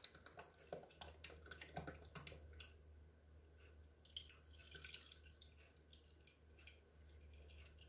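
Faint trickling and dripping of heavy whipping cream pouring from a carton into a stainless steel bowl, with small drips ticking more sparsely as the stream thins.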